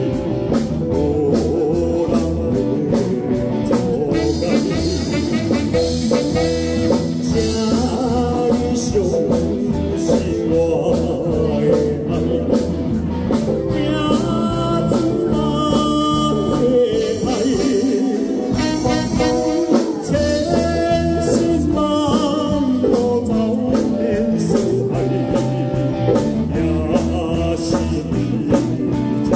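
A man singing a slow ballad into a handheld microphone through a PA, backed by a live band of guitar, keyboard and drum kit.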